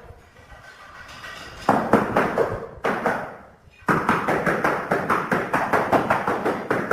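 Rapid, even tapping, about seven sharp knocks a second, starting a couple of seconds in, pausing briefly near the middle, then carrying on.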